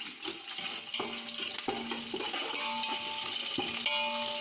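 Green chillies, curry leaves and whole spices sizzling in hot oil in a large pot, stirred with a ladle that knocks against the pot a few times.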